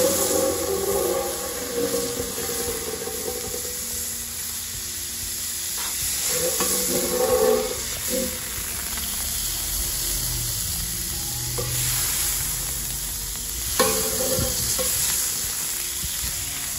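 Butter and hot oil sizzling in a wide metal comal, with a steady hiss. A metal spoon stirs and scrapes the pan, knocking against it a few times.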